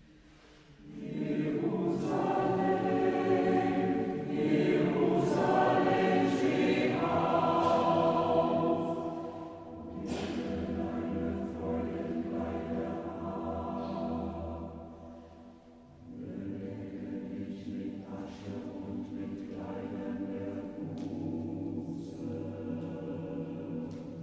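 Choir singing, held sung notes in phrases with short breaks about ten and sixteen seconds in.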